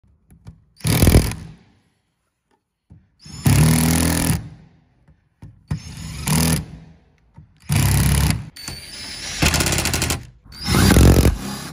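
Cordless impact driver hammering in short bursts as it drives terminal screws on consumer-unit circuit breakers and an earth bar. There are six bursts of about a second each, with quiet gaps between them. The tool is over-tightening the terminals, which is how they get damaged.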